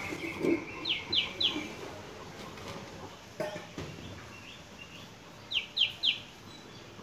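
A bird calling: three quick high chirps, each sweeping downward, about a second in, then the same three-chirp call again near the end.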